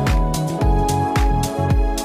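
Background electronic music with a steady drum beat, about two kicks a second, and sustained keyboard notes.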